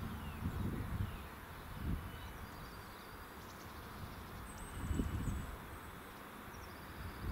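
Wind gusting against the microphone in irregular low rumbles, with faint bird chirps.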